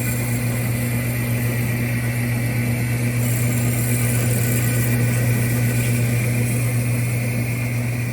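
Jet HBS-1018-W horizontal bandsaw running, its 2 hp electric motor giving a steady, loud low hum with a fainter higher whine over it.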